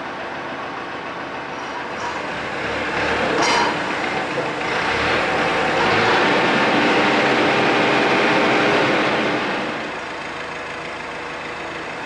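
A machine's engine running steadily. It grows louder about two and a half seconds in, stays loud for several seconds and drops back near the end, with one sharp click early in the louder stretch.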